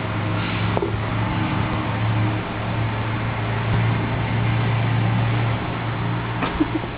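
Steady low mechanical hum of a running motor over a background hiss, easing off about five and a half seconds in, followed by a few sharp clicks near the end.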